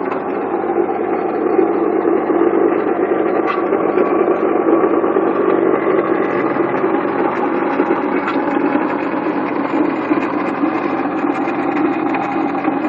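1997 Honda Accord engine running with a steady loud rattling, grinding noise from the front of the engine on the pulley side. It comes from the failing water pump, whose bearings have probably gone bad.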